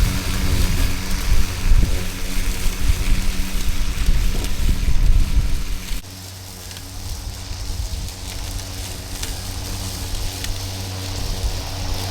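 Milwaukee cordless battery lawn mower running with a steady electric-motor hum. A loud, gusty low rumble over it for the first half cuts off abruptly about halfway, leaving the steady hum.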